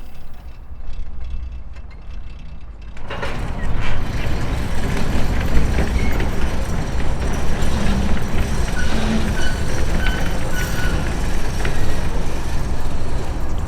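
Pickup truck on the road: a low rumble, then from about three seconds in a loud, steady rush of engine, road and wind noise as it gets under way.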